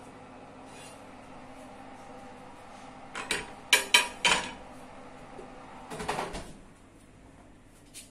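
A pizza stone set down onto a chrome wire oven rack on a worktop: a quick run of four or so clattering clinks within about a second, stone and metal rack knocking together. A softer rattle follows about six seconds in.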